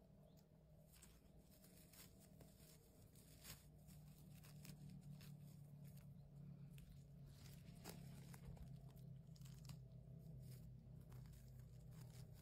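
Faint scattered crackles and snaps as chanterelle mushrooms are plucked by hand from dry conifer-needle litter, over a low steady hum.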